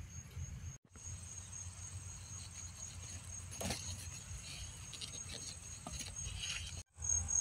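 Crickets chirping in a steady, high trill, with faint rustling and small clicks of tomato vines being handled as cherry tomatoes are picked by hand. The sound cuts out abruptly twice, about a second in and near the end.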